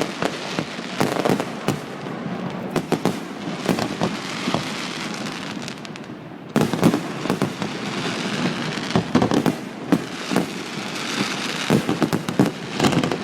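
Fireworks display: shells banging in quick, irregular succession over continuous crackling, with a sudden step up in loudness about six and a half seconds in.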